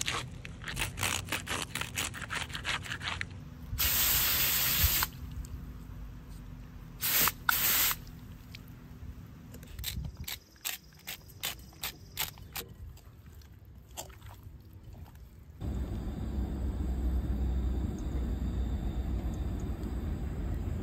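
A knife cutting a whole fish into pieces on a cutting mat, in quick repeated strokes with scraping and clicks as it goes through the bones. Two loud bursts of hissing spray follow, then scattered light clicks. About three-quarters of the way in, a camp stove burner starts a steady hiss with a low rumble.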